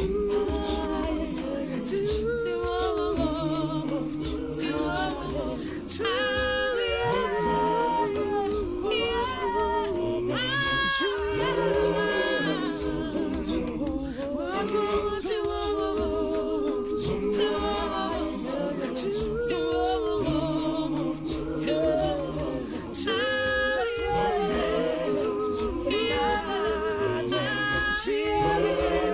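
A group of voices singing a cappella in harmony, with no instruments.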